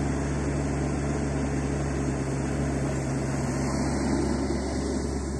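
Mini excavator's engine running steadily with a low-pitched hum as the boom and bucket are raised.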